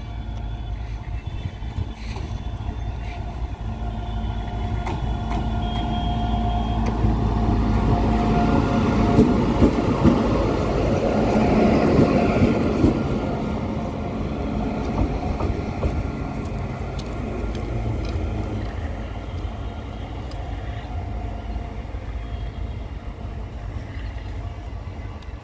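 Indian Railways WAG-9 electric locomotive running along the track, a rumble of wheels on rails with a steady hum. It grows louder as it approaches, is loudest about ten to thirteen seconds in as it passes close by, then fades away.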